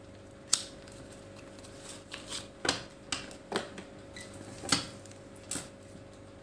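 A deck of Lenormand cards shuffled by hand, the cards snapping and slapping together in a series of sharp, irregular clicks, five of them louder than the rest.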